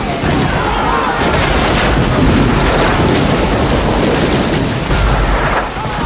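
Battle sound effects: a steady, dense roar of explosions with men shouting and yelling in it.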